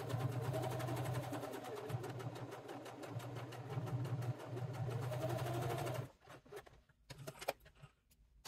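Electric domestic sewing machine stitching through cork leather: a steady motor hum with a rapid, even run of needle strokes that stops suddenly about six seconds in. A few light clicks follow near the end.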